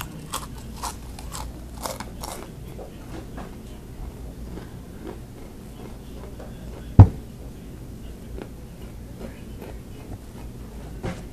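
Close-up crunching and chewing of a mouthful of crunchy spicy cheese snacks: quick crisp cracks for the first couple of seconds, then fainter chewing. A single sharp knock about seven seconds in is the loudest sound.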